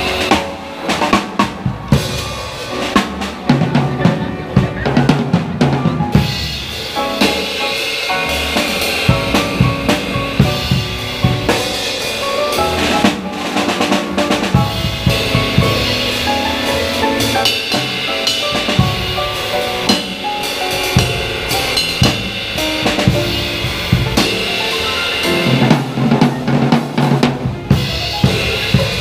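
Live music driven by a drum kit playing a steady beat of frequent bass and snare hits, with held pitched notes sounding above it.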